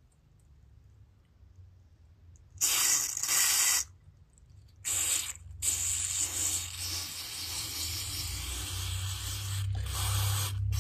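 Aerosol carb cleaner hissing through an extension straw into the jets and passages of a Briggs & Stratton carburetor. There is a burst about three seconds in, a short one near five seconds, a long spray of about four seconds, and a last short burst near the end.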